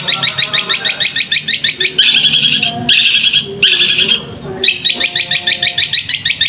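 Long-tailed shrike (cendet) singing: a rapid run of repeated chattering notes, about nine a second, broken by a few longer held notes around two to four seconds in, then the rapid run again.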